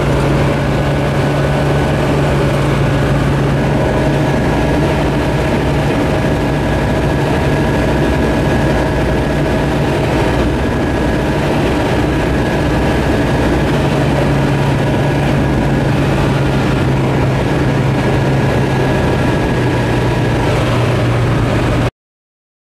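Tecnam P2002-JF light aircraft's Rotax four-cylinder engine and propeller droning steadily, heard from inside the cockpit in flight. It cuts off suddenly near the end.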